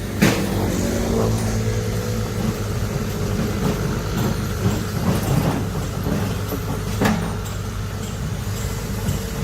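Diesel engine of heavy earthmoving machinery running steadily, with a sharp knock just after the start and another about seven seconds in.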